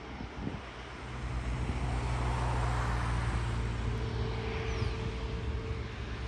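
Airbus A350-941's Rolls-Royce Trent XWB jet engines running at taxi power as the airliner turns on the runway: a steady low drone with a faint whine, growing louder about a second in.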